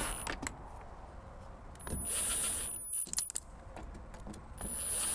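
Milwaukee M18 Fuel cordless driver spinning screws into the plastic electrical box cover of a radon fan, in two short runs of about a second each with a thin high whine. The first comes about 2 s in, the second near the end, with small clicks of the tool and screws being handled between them.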